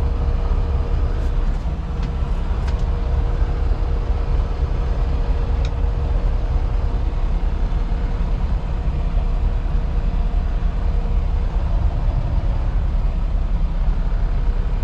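Semi-truck's diesel engine running steadily, heard from inside the cab as a low rumble with a faint steady hum, and a few light clicks a second or two in.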